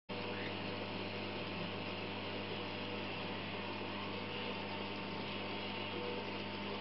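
Steady low hum with an even hiss over it, unchanging throughout, typical of an aquarium's pump and water circulation running.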